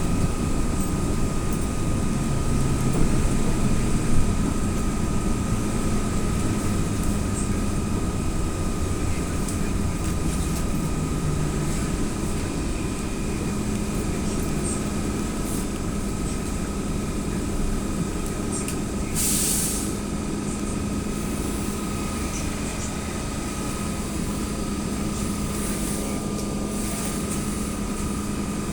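Cabin noise of an AKSM-321 trolleybus under way: a steady drone with a thin high whine and a low hum running through it. A short hiss sounds about two-thirds of the way through.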